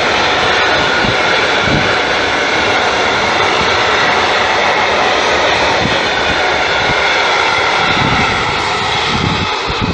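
Container freight wagons rolling past close by: a steady, loud rumble and hiss of steel wheels on the rails, easing slightly near the end.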